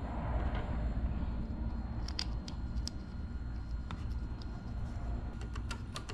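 Scattered small clicks and taps of a nut driver and the plastic twist-grip throttle housing as the housing is screwed back together on the handlebar, over a low steady rumble.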